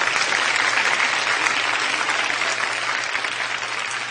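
Audience applauding in a large hall, a steady clapping that eases off slightly near the end.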